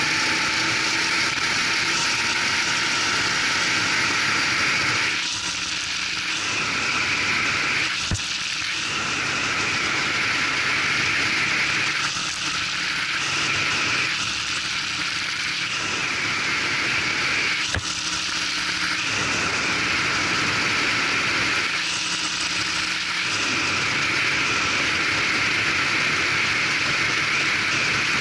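Racing kart's engine running hard under wind rush on the onboard microphone, the engine note easing off briefly about six times through the lap. Two sharp knocks about 8 and 18 seconds in.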